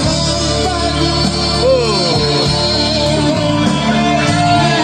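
Karaoke: a man singing into a microphone over a backing track, both coming through a party loudspeaker.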